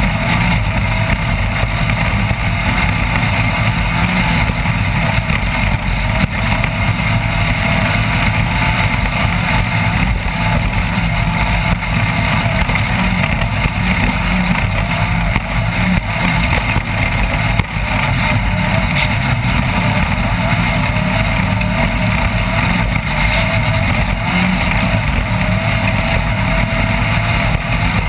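Off-road race vehicle's engine running hard and steadily, a loud continuous drone with no letup.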